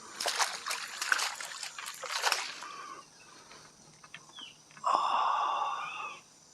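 Water splashing and sloshing in irregular bursts for about two and a half seconds. Later a steady rasping sound lasts just over a second and is the loudest thing heard.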